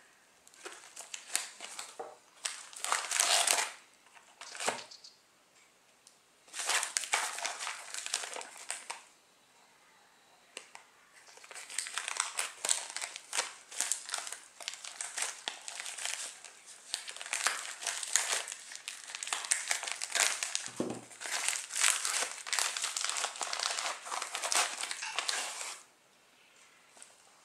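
Black plastic poly mailer bag crinkling as it is handled and cut open with scissors, in several stretches of rustling with short pauses between them. There is a soft thump about three quarters of the way through, and the crinkling stops near the end.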